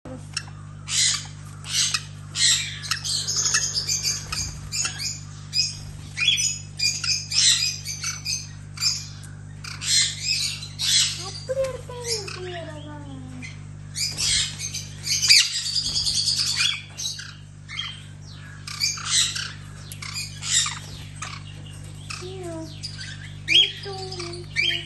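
Birds squawking in quick, harsh calls, one after another, with a few lower falling notes around the middle and near the end, over a steady low hum.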